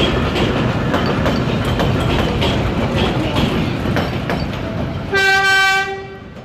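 Vintage IRT Lo-V subway cars running through an elevated station without stopping: a steady wheel rumble with scattered clicks over the rail joints. About five seconds in, a train horn sounds once, briefly, and the rumble then fades.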